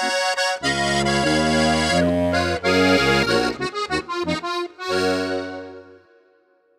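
Solo diatonic button accordion playing a csárdás: held chords over deep bass notes, then a quick run of short notes, and a last long chord that dies away about six seconds in.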